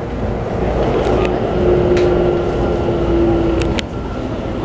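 Keikyu New 1000 series electric train running, heard from inside the car. There is a steady rumble of running noise, and a clear steady hum from the Toshiba IGBT-VVVF inverter and traction motors sets in about a second in and cuts off near the end. A few sharp ticks come through as well.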